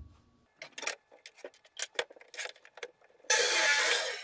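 A few light knocks and clicks of a board being handled and set in place, then about a second of a miter saw cutting through the wood board, loud, stopping abruptly near the end.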